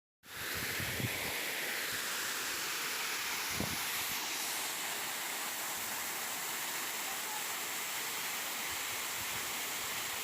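Steady rush of a waterfall: an even, constant hiss of falling water.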